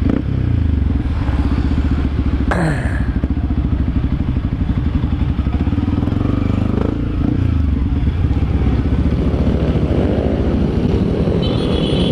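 Yamaha WR155 single-cylinder engine running through an RSS aftermarket exhaust while riding in traffic, its rapid exhaust pulse rising and falling with the throttle. There is a short sharp click about two and a half seconds in.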